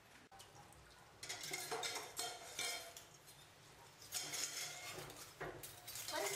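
Dishes and cutlery clinking and clattering as they are handled at a kitchen sink, in two spells of a second or two each, starting about a second in.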